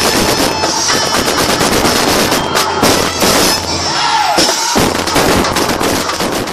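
Fireworks crackling in a dense, rapid rattle like a string of firecrackers, with music underneath.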